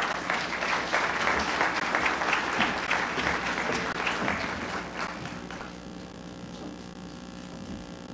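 Audience applauding, dying away about five to six seconds in, over a steady low hum.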